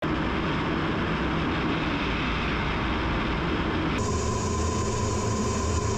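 Steady noise of a jet aircraft in flight. About four seconds in, the sound changes abruptly and a steady high tone joins it.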